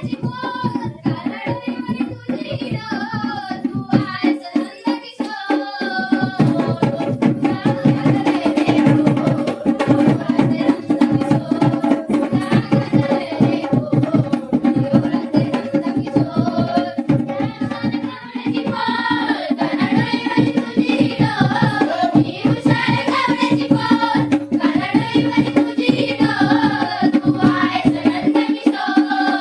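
Marathi folk song from Konkan: singing over a driving hand-drum rhythm, with a steady held note underneath. The drums drop out for a moment about four seconds in, then come back.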